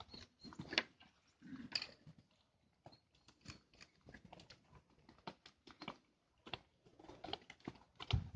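Faint, uneven thuds and clicks of a horse's hooves on a sand dressage arena, with a stronger low thump near the end.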